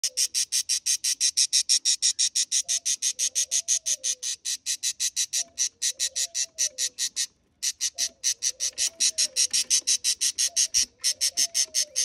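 Budgie chicks begging for food: a fast, even run of high, short chirps, about seven a second, with a brief pause about seven seconds in.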